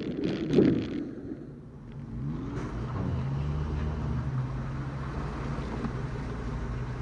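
Off-road 4x4 engine revving as the truck splashes through creek water for about the first second. Then, from about two and a half seconds in, an engine runs steadily at low revs as the rig crawls over rocks.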